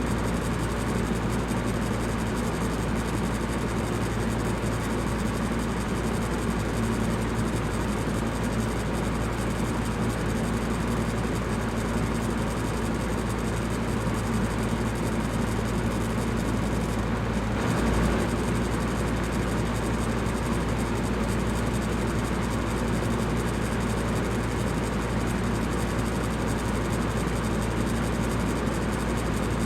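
Electric fan running steadily: an even rushing noise with a low hum underneath, and one brief soft bump a little past halfway.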